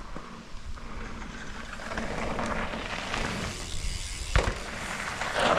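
Mountain bike rolling fast over a dirt trail, a rush of tyre noise that grows louder about two seconds in, with one heavy thud about four and a half seconds in, typical of the bike landing a gap jump.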